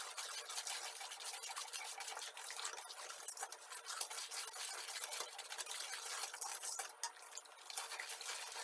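Metal spoon stirring and scraping in a stainless steel bowl of milk while granulated sugar is poured in, a continuous run of fine scrapes and clicks with a brief lull about seven seconds in: sugar being stirred into the milk to dissolve it.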